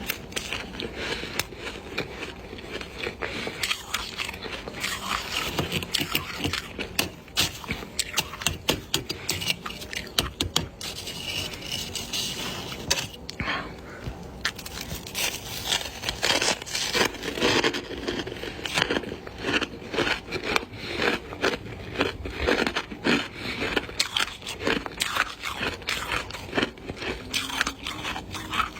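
Ice being bitten and crunched close to the microphone: a dense, irregular run of sharp cracking crunches.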